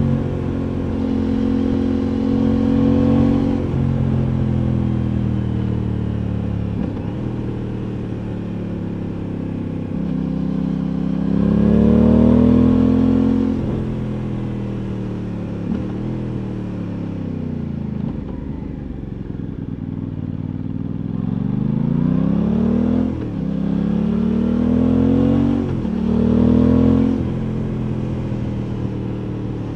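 Aprilia Tuono 660's parallel-twin engine under way, heard from the rider's seat. Its pitch climbs hard about a third of the way in and then sinks slowly as the bike slows. Near the end it climbs again in three short rising pulls, with a quick drop in pitch at each upshift.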